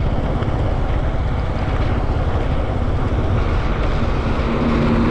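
Steady vehicle rumble with wind buffeting the microphone.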